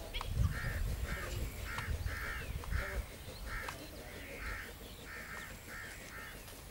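Crows cawing over and over in a steady series of short calls, about two a second. A low rumble runs under the first three seconds.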